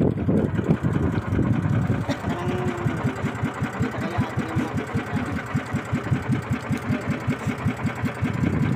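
Small boat engine running slowly, with an even putt-putt of about six beats a second.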